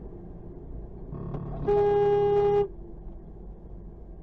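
Car horn blown once and held for about a second, starting softer and then sounding at full strength in one steady tone, over the steady low rumble of a car driving.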